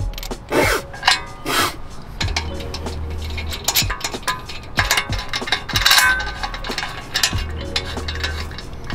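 Irregular metallic clinks and scrapes of lug bolts being threaded by hand into a Volk Racing TE37 alloy wheel as it is mounted on the hub.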